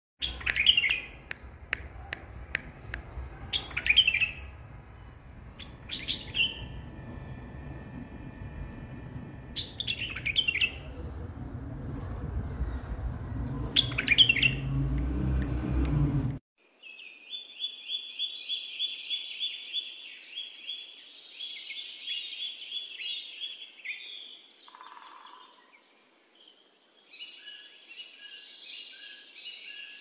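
White-eared bulbul singing: loud, short whistled phrases every few seconds over a low rumble. About halfway through, the sound cuts off abruptly and gives way to a fast, rapid run of repeated notes, then quieter scattered chirps.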